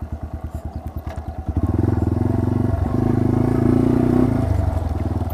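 2014 Yamaha TW200's air-cooled single-cylinder four-stroke engine running as the bike rides along. It gets louder about a second and a half in, holds there, and eases off slightly near the end.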